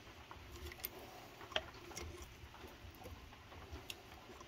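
Faint, scattered light clicks and taps of a hand-operated valve spring compressor being handled and adjusted. The sharpest click comes about one and a half seconds in.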